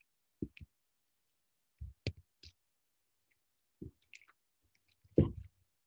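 A few scattered short clicks and soft knocks, the loudest a low thump near the end, with silence between.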